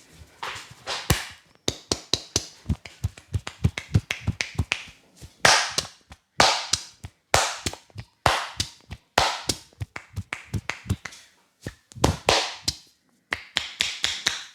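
Hands rapidly tapping and slapping on a head during a head massage: a quick patter of taps, with louder single slaps about once a second in the middle and again near the end.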